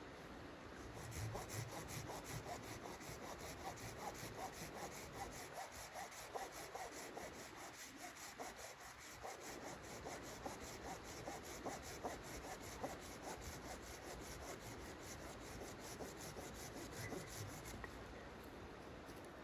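Hand saw cutting through wood with a long run of even back-and-forth strokes.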